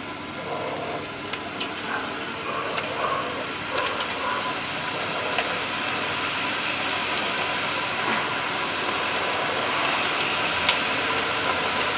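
Onion pakoda batter sizzling in hot groundnut oil in a kadai as handfuls are dropped in, the oil foaming up around them. The steady sizzle grows louder as more batter goes in.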